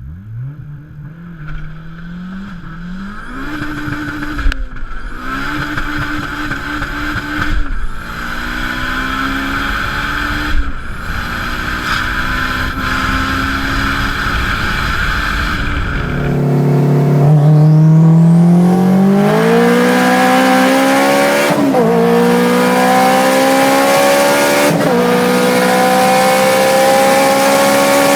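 Honda Civic four-cylinder VTEC engine accelerating hard through the gears. The pitch climbs and drops back at each upshift, roughly every three seconds. About sixteen seconds in, the sound changes abruptly to a second car's pull, again rising through several upshifts.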